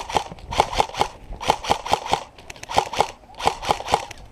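Footsteps crunching over dry ground, a cluster of crackling crunches with each step at an even walking pace.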